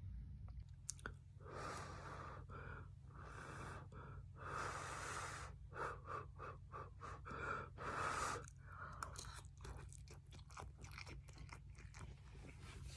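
A person eating a pot noodle with bread: faint chewing broken by several short breathy noises, a few seconds apart, over a steady low hum.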